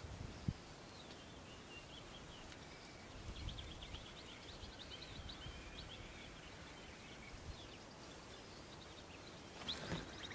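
Quiet mountain ambience: small birds chirping and trilling on and off, with a few soft low rumbles and one sharp click about half a second in.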